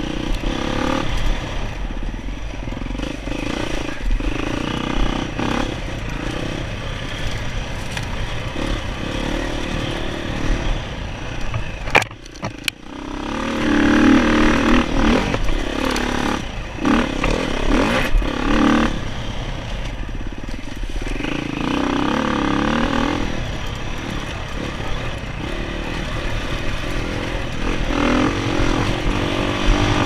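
Dirt bike engine running under load while riding a trail, revving up and falling back again and again as the throttle is worked. About twelve seconds in the engine cuts back briefly and sharply, then comes back hard.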